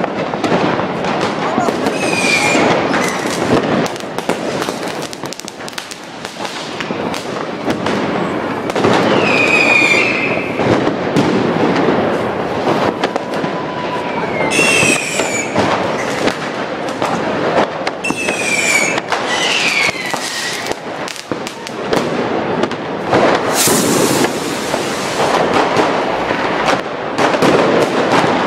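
New Year's Eve street fireworks going off all around: a dense, continuous crackle of firecracker bangs and rocket bursts. Five whistling fireworks sound falling whistles, and one especially sharp, loud blast comes about five seconds before the end.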